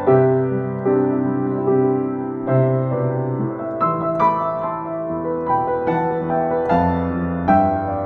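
Yamaha JX113T upright piano played with its front panel off, a slow passage of chords and melody, with new notes struck about once a second and ringing on between them. The piano is freshly tuned and being played as a sound test.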